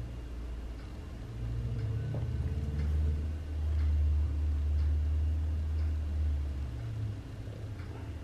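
A low, steady hum that drops in pitch about two seconds in and rises again near the end, with a few faint light clicks.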